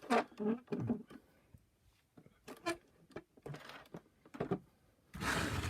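Scattered plastic clicks and knocks from handling the parts of a vacuum power nozzle being taken apart. There is a short rustle in the middle and a louder scraping rustle near the end.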